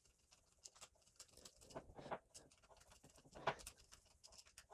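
Faint, irregular small clicks and ticks of a screwdriver turning the cord-clamp screws on a plastic three-prong plug, the loudest about three and a half seconds in.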